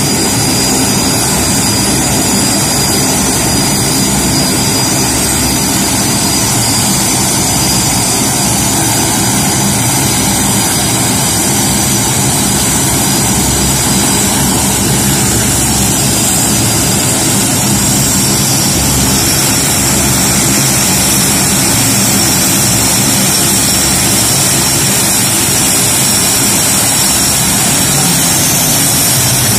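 BAE Hawk jet's Rolls-Royce Turbomeca Adour turbofan running steadily: a constant loud rush with a high whine held on top.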